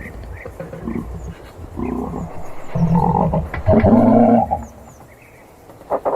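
Giraffe making low vocal sounds in several bouts, loudest from about three to four and a half seconds in, with a short sharp sound near the end.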